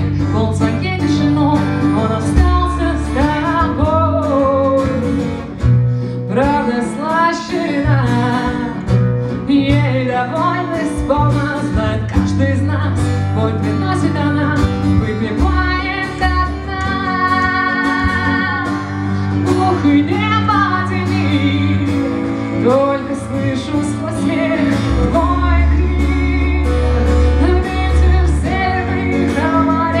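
Live acoustic band music: acoustic guitar, violin and cello playing, with a woman singing.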